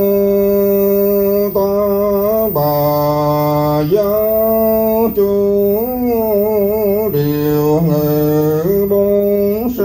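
A single male voice chanting Buddhist liturgy in long held notes, stepping between a higher and a lower pitch with wavering ornaments and brief breaths between phrases.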